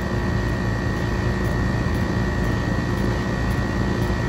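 Trane R410A central AC condensing unit running steadily, its compressor humming with a steady high whine. It is running against a closed liquid line valve in a pump-down test and not pulling the suction pressure down, which the technician takes for a dead compressor.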